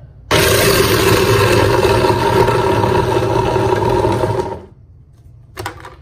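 Kitchen garbage disposal switched on and grinding a load of ice cubes, a loud steady motor grind that cuts in suddenly and runs for about four seconds before it is switched off and winds down. The ice is being ground to throw shards against the grinding chamber and knock off decaying food. A brief clatter follows near the end.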